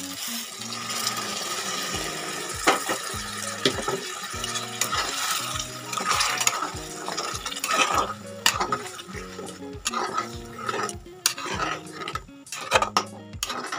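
Hot water added to fried mutton and potatoes in an aluminium pot hisses and sizzles for the first few seconds. A steel spatula then stirs the curry, clinking and scraping against the pot again and again, over soft background music.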